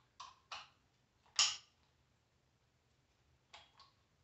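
Hard plastic clicks from a power adapter and its swappable plug heads being handled over a plastic carrying case: two light clicks, a sharper, louder clack about a second and a half in, then two faint clicks near the end.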